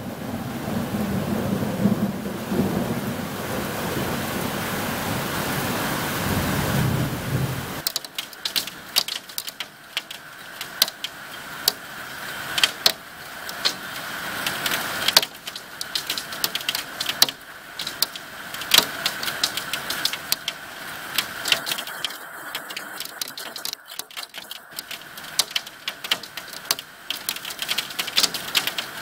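Heavy rain with a low rumble of thunder. About eight seconds in, the sound switches abruptly to a hailstorm: a dense, uneven patter of sharp ticks and clicks from hailstones striking.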